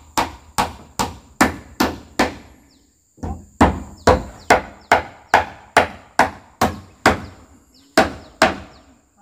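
Hammer blows, a steady run of strikes at a little over two a second with a short pause about three seconds in, typical of nailing wall boards in place.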